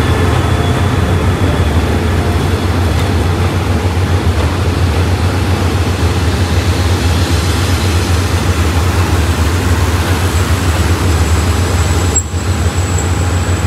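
SRT diesel locomotive and train standing with engines running: a steady low drone under an even mechanical noise, briefly dipping near the end.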